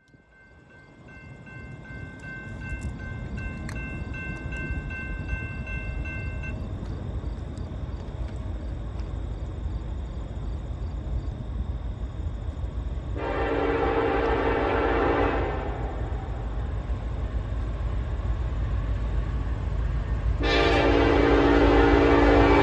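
Norfolk Southern train approaching: a low rumble that grows steadily louder, with a blast on the locomotive's air horn about thirteen seconds in, and a second blast starting near the end.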